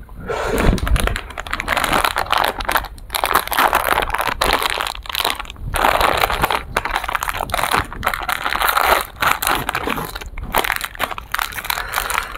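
Plastic ice-cream bar wrapper crinkling and tearing as it is opened and peeled off a kulfi stick by hand: a dense run of crackles with a few short pauses.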